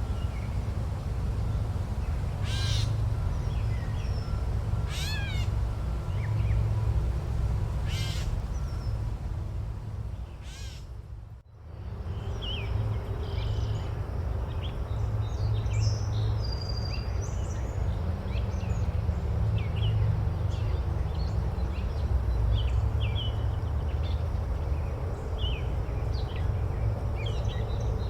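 Forest ambience. Over a steady low rumble, a large bird gives harsh calls about every two and a half seconds, four in all. After a brief drop in level near the middle, many small birds chirp in short high notes.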